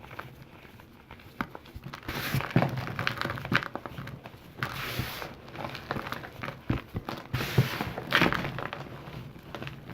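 Compressed calcium carbonate being crumbled and crushed: crisp crunching and crackling with fine powdery hiss, coming in about three louder bouts between softer clicks.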